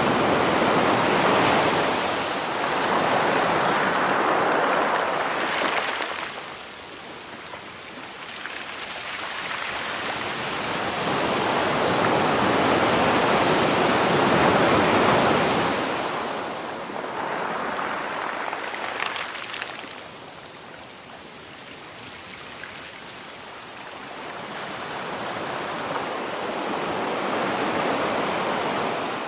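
Ocean surf: waves breaking and washing ashore in slow surges, swelling and fading roughly every ten seconds.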